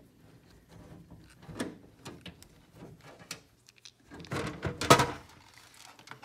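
Clicks, taps and knocks of hands handling a PC case and its power-supply cables, with a louder clatter of knocks about four to five seconds in.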